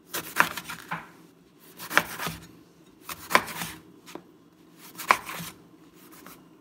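A cleaver cuts through eggplant and strikes a plastic cutting board four times, about one cut every second and a half. Each cut is a sharp knock with a short rasp of the blade passing through the flesh.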